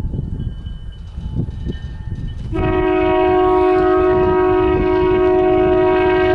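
Diesel locomotive air horn sounding one long blast, a chord of several steady notes, starting about two and a half seconds in and cutting off near the end, over a low rumble.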